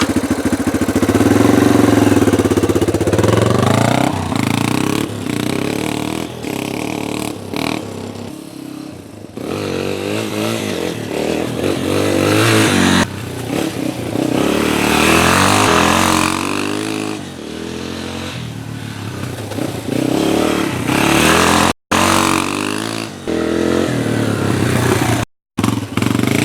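Yamaha TTR230's single-cylinder four-stroke engine running with its fuel screw freshly adjusted, the throttle opened and closed so the pitch rises and falls. A little bog, hiccup and backfire remain, a sign the pilot circuit is still slightly lean. The sound cuts out briefly twice near the end.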